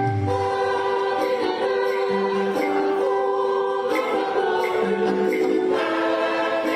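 Choir singing sustained chords, sacred music used as an intro.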